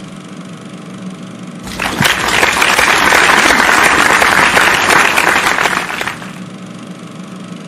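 A group of people clapping in applause. It starts about two seconds in, lasts about four and a half seconds and then dies away, over a steady low hum.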